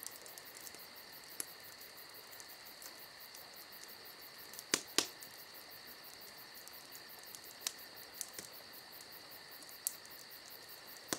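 Faint, steady high-pitched whine with a handful of sharp clicks, two of them close together about five seconds in.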